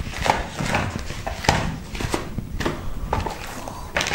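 White foam packing end pieces and the plastic wrap of a slim external DVD writer being handled and pulled off by hand: irregular rustling and rubbing with a scatter of sharp clicks.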